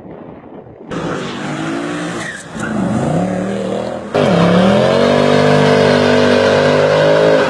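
Mercedes C63 AMG engine and exhaust accelerating hard: the engine note drops and climbs again as it pulls through the revs. It cuts in abruptly about a second in and jumps much louder about four seconds in, then holds a high, slowly rising note.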